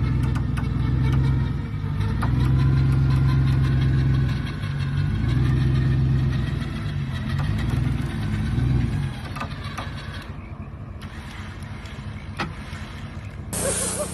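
Pickup truck engine revving hard, loud for about nine seconds, then dropping back to a quieter run.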